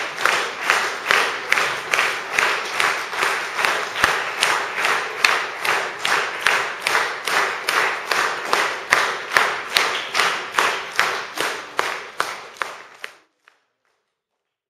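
Audience clapping in unison in a steady rhythm of about two and a half claps a second. It fades near the end and then cuts off into silence.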